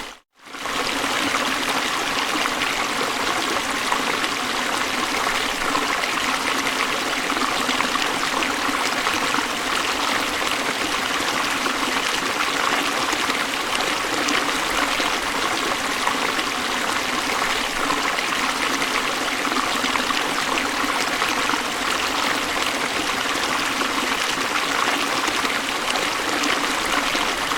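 River water rushing steadily over falls, an even continuous wash of flowing water. There is a brief cut-out just after the start.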